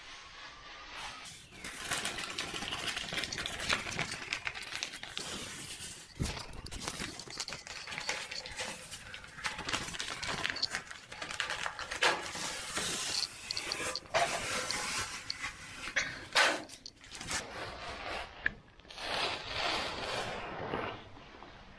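Wallpaper being pulled off the wall: irregular papery crackling and tearing, starting about a second and a half in, with sharper cracks scattered through it.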